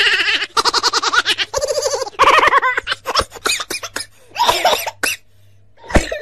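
A woman making loud, silly vocal noises in several bursts, some rapid and laugh-like, with short pauses between them.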